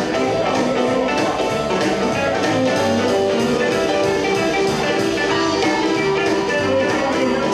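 Live blues band playing an instrumental stretch with no singing: semi-hollow electric guitar over a steady beat from drums and upright bass.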